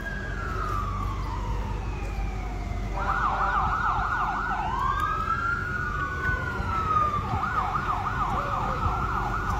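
Emergency vehicle siren sounding a slow rising-and-falling wail, twice switching to a fast yelp of about four to five sweeps a second, over a low rumble of passing vehicle engines.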